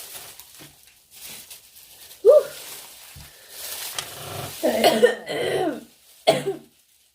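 A woman coughing in several bouts: a short cough about two seconds in, a longer coughing fit around five seconds, and one more cough near the end. She is clearing something that hit the back of her throat as she inhaled.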